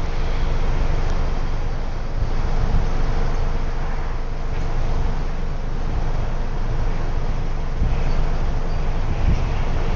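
Wind buffeting the phone's microphone over a steady outdoor rumble, with no distinct calls or strokes standing out.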